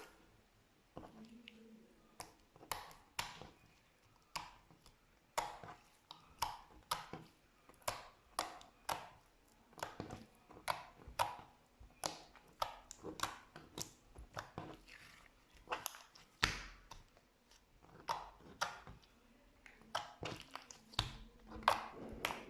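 Slime being squished and kneaded by hand, giving an irregular run of sharp clicking pops, about two a second.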